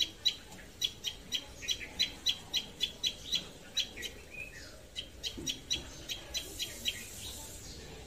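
Common tailorbird calling: a rapid series of short, sharp high chirps, about three to four a second, with a brief pause a little past the middle and fainter notes near the end.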